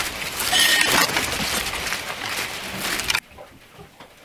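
Chickens moving about on a woodpile among dry leaves: rustling and scratching, with a brief call about half a second in. Near the end the sound drops suddenly to faint, scattered ticks.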